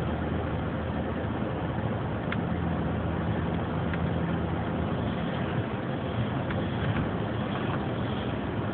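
Car driving at road speed, heard from inside the cabin: a steady low engine hum under even tyre and road noise.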